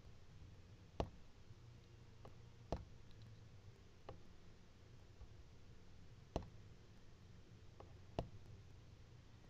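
A handful of short, sharp clicks and taps spaced a second or two apart over a faint low hum: small handling sounds from working the phone and its repair tools by hand.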